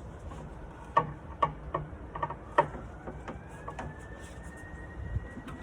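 A screwdriver clicking and tapping against the screws and metal handle of a nightstand drawer as the handle is taken off: a few irregular sharp clicks, the loudest in the first half.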